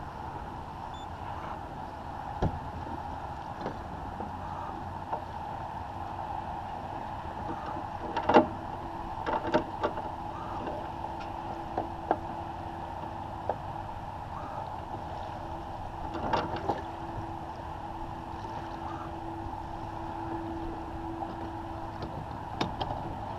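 Water washing steadily along the hull of a First 30 sailboat under sail in light wind, with scattered knocks and creaks from the boat and its rigging; a sharp knock about eight seconds in is the loudest, and a faint steady hum runs through the middle.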